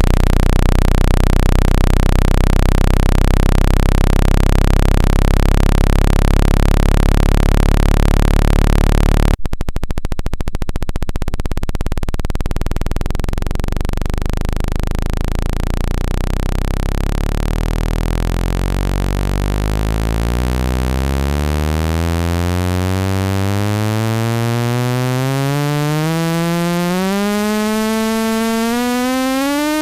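Synthesized water-eject tone for clearing earphone speakers. A loud, low buzz holds steady for about nine seconds, then switches abruptly to a buzzy sweep that rises steadily in pitch. The low-frequency sound is meant to push trapped water and dust out of the earphone speaker grilles.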